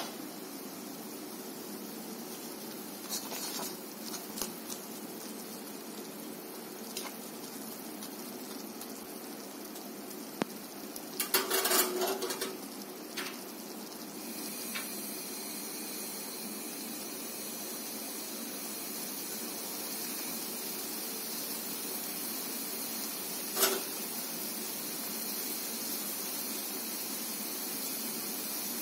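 Noodles and egg boiling in a black iron kadai, a steady bubbling hiss that grows stronger about halfway through. A few knocks and clinks of a utensil against the pan, a cluster of them midway and a single one later.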